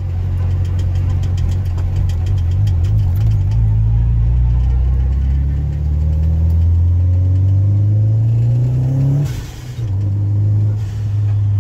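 Turbocharged SR20DET four-cylinder in a Nissan 240SX hatchback, heard from inside the cabin as the car accelerates. The engine note climbs steadily for about five seconds, drops off sharply with a short hiss about nine seconds in, then settles back to steady running.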